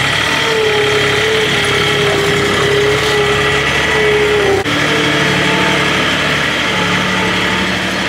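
Skid-steer loader engine running steadily, with a steady whine over the engine note. The sound changes abruptly a little past halfway, then runs on at a slightly different pitch.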